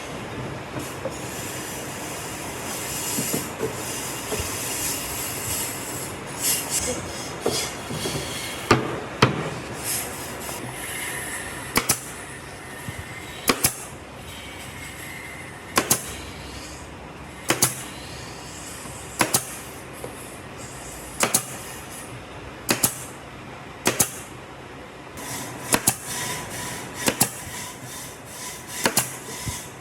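Woodworking shop sounds: a steady mechanical noise with a high whine for about the first ten seconds, then sharp knocks repeating about every two seconds.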